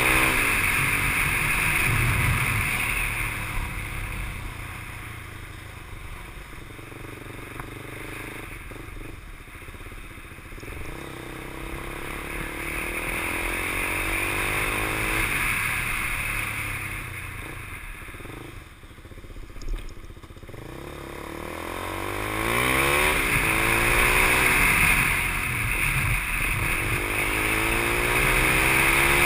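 KTM 390 Duke's single-cylinder engine under way. It pulls up through the revs near the start, runs more quietly at lower revs through the middle, and revs up hard again about three quarters of the way through.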